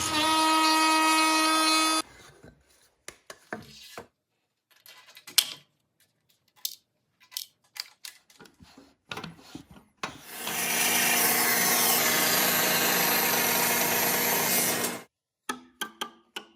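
A power saw cutting wood stops suddenly about two seconds in. Scattered knocks and clicks of wood and tools being handled follow. A second cut of about five seconds comes next, and a few more knocks near the end.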